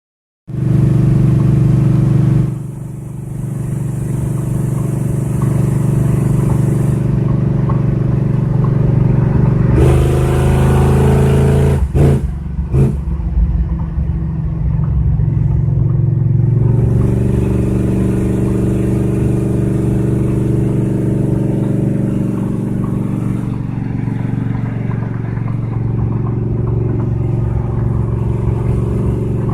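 1969 Blue Bird bus under way, its engine running steadily with road noise. The engine note changes about two seconds in and again around ten seconds in, with a few sharp knocks near twelve seconds.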